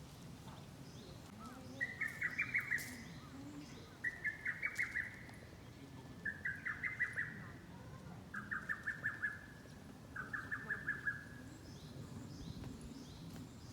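A bird calling in five short, rapid trills of about eight quick notes each, spaced about two seconds apart, each trill a little lower in pitch than the one before.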